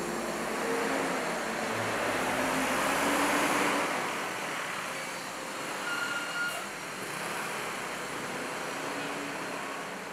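Street traffic noise: a city bus passing close by, swelling to loudest about three seconds in and then easing, over the steady noise of cars and motorbikes.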